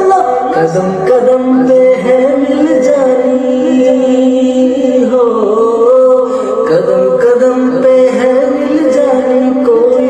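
Background music: a song with a voice singing a melody.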